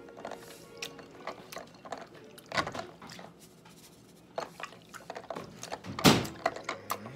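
A hand working wet, seasoned perch fillets around in a bowl, making irregular wet squelches and clicks, the loudest about six seconds in. Seasoning is shaken from a can over the bowl.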